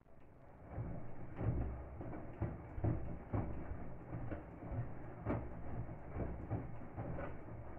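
Indesit front-loading washing machine in its main wash: after a brief pause the drum starts turning again about a second in, its motor hum under the laundry sloshing and dropping through the soapy water about once a second.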